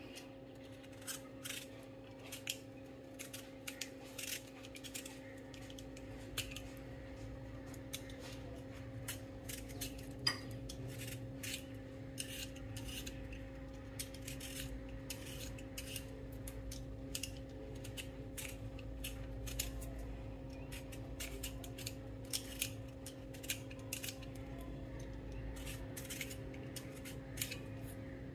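Y-shaped vegetable peeler scraping strips of skin off a raw potato: short rasping strokes, roughly two or three a second.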